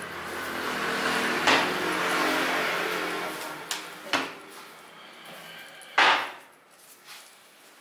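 A mass of hand-pulled candy slapped and looped over a wooden pulling peg: three sharp slaps about a second and a half, four seconds and six seconds in, the last the loudest. A rushing noise swells and fades under the first half.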